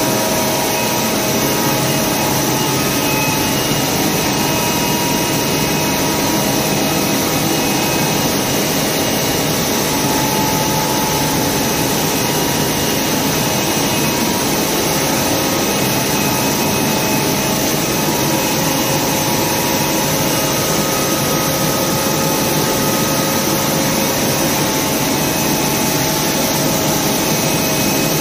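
Flour mill machinery running: a loud, steady mechanical din with faint steady whining tones over it.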